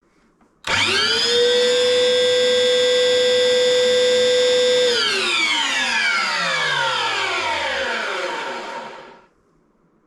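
Chip extractor switched on: its motor and fan spin up quickly to a steady whine, run for about four seconds, then are switched off and wind down in falling pitch until they stop. It sounds bad, with a cutting noise that the owner suspects comes from a worn motor bearing.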